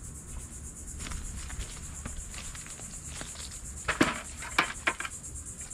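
Insects buzzing in a steady, high, evenly pulsing drone. About four seconds in come a few knocks and rattles as things are handled in a plastic bucket.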